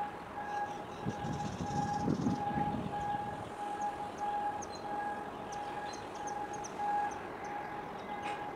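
An electronic warning beeper from container-terminal machinery sounds one evenly repeated tone, roughly one and a half beeps a second. A low rumble swells and fades in the first few seconds, and short high chirps come and go.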